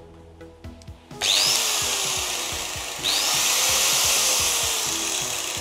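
Makita 9558 angle grinder switched on and running with no load, starting twice: once about a second in and again about three seconds in, each time with a rising whine as it spins up. It runs normally.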